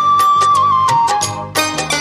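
Instrumental interlude of a Bengali folk-style song: a lead instrument holds one long high note that steps down about halfway through, over a steady drum beat.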